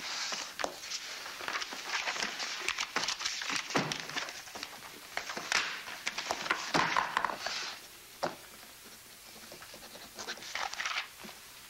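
Sheets of paper rustling and crinkling as they are handled and leafed through, with small clicks and knocks, busiest in the first eight seconds and sparser after.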